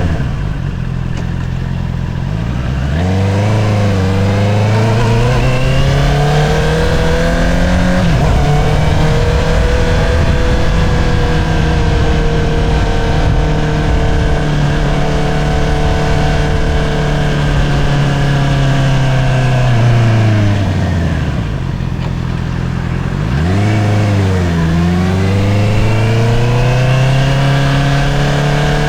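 Honda CBR650R's inline-four engine through an Akrapovič single-outlet exhaust, heard from the rider's seat: the engine note falls off at the start, climbs as the bike accelerates, holds a steady cruise, then drops again about two-thirds of the way through before climbing once more under acceleration.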